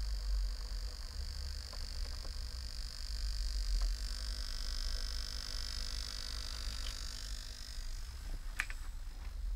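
Steady low electrical mains hum with a high-pitched whine from a power dimmer circuit driving a salt-water conduction load; the whine fades away about three-quarters of the way through. A few sharp handling clicks come near the end.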